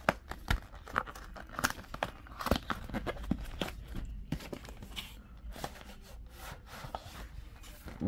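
A dull box cutter scraping and slicing at a cardboard box's packaging, with rustling and tearing of the wrapping. Scattered sharp clicks come through, the clearest near the start and about two and a half seconds in.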